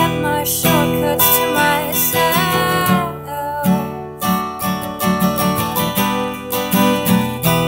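Acoustic guitar strummed in a steady rhythm, with a woman's voice holding a wavering sung note over it in the first few seconds, then guitar alone.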